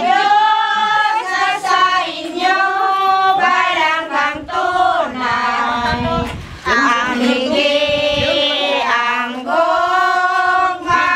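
A group of people singing a song together, mostly women's voices, in long held phrases with short breaths between them. A brief low rumble comes in about six seconds in.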